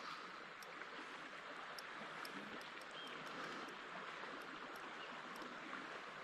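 Faint, steady rush of flowing river water, with a few faint scattered ticks.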